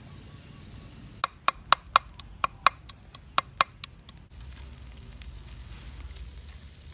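A kitchen knife chopping chilies and garlic on a wooden chopping block: about eight sharp chops in quick uneven pairs over two and a half seconds. Then a quieter, steady, low hiss with faint crackles from fish grilling over charcoal.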